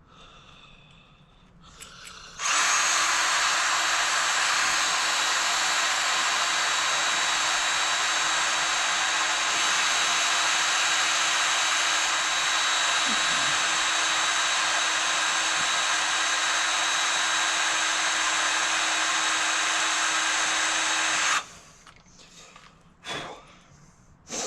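Electric drill running at a steady speed, boring out the stuck hinge pin screw of a Brompton folding bike's hinge. It starts a couple of seconds in, holds one even pitch for nearly twenty seconds, then cuts off, followed by a single knock.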